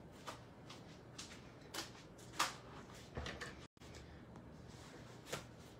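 Scattered light clicks and taps of craft supplies being handled on a desk, the loudest about two and a half seconds in, as a ribbon spool is set down. A low steady hum runs underneath.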